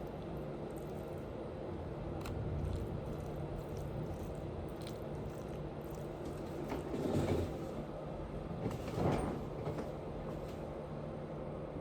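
A person chewing and munching food close to the microphone, with faint mouth clicks over a steady low hum, and two louder noisy swells about seven and nine seconds in.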